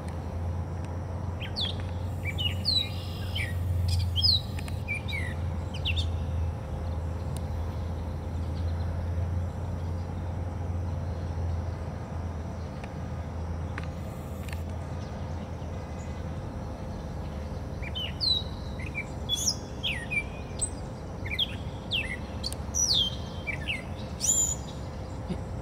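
Gray catbird singing: a jumbled run of quick, varied squeaky notes that rise and fall, in two bouts with a long pause of about twelve seconds between them. A steady low rumble lies underneath.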